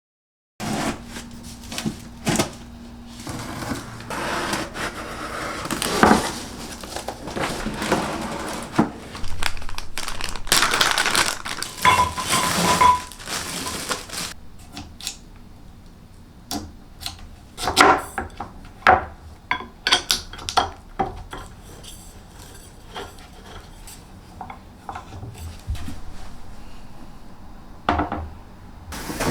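Dishes and kitchenware clinking and clattering as they are handled and set down. The clatter is busiest in the first half, with a short ringing clink about twelve seconds in, then thins to scattered knocks and clicks.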